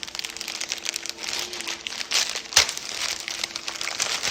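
Crinkly packaging rustling and crackling as it is handled while a new outfit is taken out, with one sharper crackle about two and a half seconds in.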